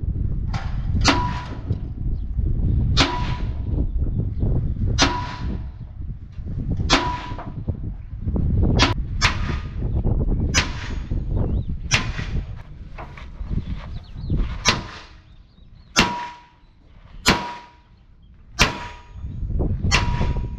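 Sledgehammer blows on the steel chassis frame rail of an accident-damaged Mercedes truck being repaired: a ringing metallic clang about every one and a half to two seconds, some thirteen strikes in all, with a quick pair about nine seconds in. A low rumble sits underneath until about two-thirds through.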